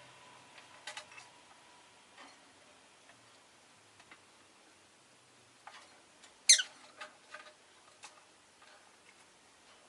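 Rosy-faced lovebird giving one sharp, high chirp that falls steeply in pitch about six and a half seconds in, among faint scattered clicks.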